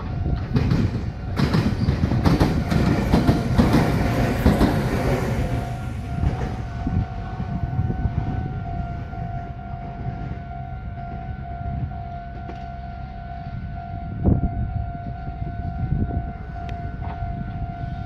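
A Meitetsu 3100-series electric train passes close by, wheels clicking over rail joints, loud for the first few seconds and then fading away. Throughout, a level-crossing warning bell rings with an even repeating tone. About two-thirds of the way through there is a single thump.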